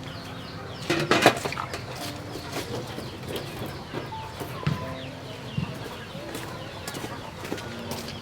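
Chickens clucking and calling, with short chirps throughout and a brief loud flurry about a second in.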